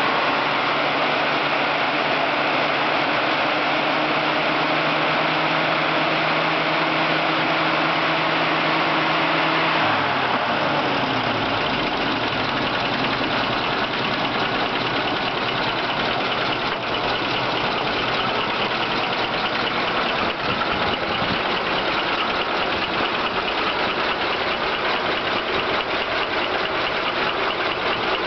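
A 1953 American LaFrance J series V12 petrol engine with twin Zenith carburettors, its top end freshly overhauled after a valve job, running in the open engine bay. About ten seconds in, its speed drops and it settles to an even idle.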